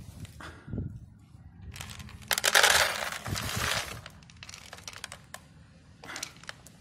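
Dry dog kibble poured from a plastic container into a plastic dog bowl, the pellets rattling in a rush for about two seconds, then a few last pieces trickling in.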